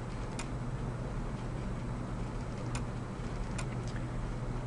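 A few sharp computer mouse clicks, two of them close together like a double-click near the middle, over a steady low hum of room noise.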